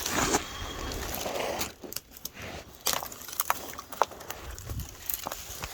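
Footsteps scrambling through dry leaves and brush: a rustle of leaves for the first second and a half, then scattered cracks and crackles of twigs and litter underfoot.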